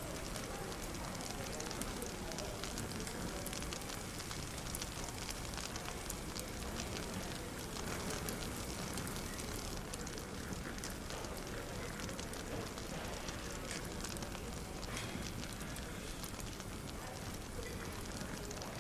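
Wood fire crackling in a fireplace, a steady scatter of small pops and snaps, with indistinct cafe chatter underneath.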